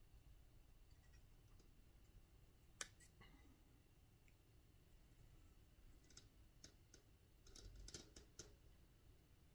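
Near silence with faint clicks and taps of small parts and tools being handled while fitting a rubber mount to a model helicopter frame. There is one sharper click about three seconds in and a cluster of clicks in the last few seconds.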